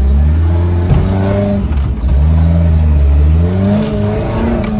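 Off-road 4x4's engine revving as it is driven forward up a climb, its pitch rising and falling several times, with a short knock about a second in.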